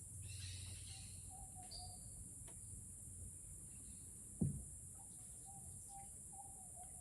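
Rainforest ambience: a steady high-pitched insect drone with a bird's low warbling whistle heard twice. A single sharp knock about four and a half seconds in is the loudest sound.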